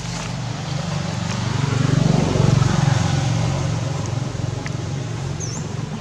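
A motor vehicle's engine hum passing by, growing louder to a peak about two to three seconds in and then fading. A brief high chirp sounds near the end.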